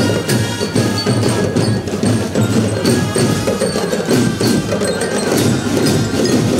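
School marching drum band playing: massed snare, tenor and bass drums beat a steady rhythm under brass, with high ringing bell notes above.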